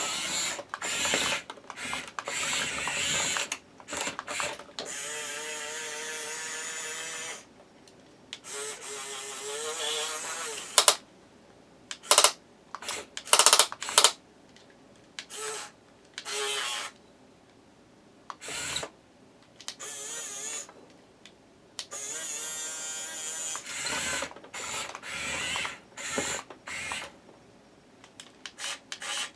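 Small electric motors and gearboxes of a 1/16-scale HUINA 1510 RC excavator whining in many short start-stop bursts as its functions are worked. There is a longer steady run a few seconds in and a whine that rises in pitch near the middle.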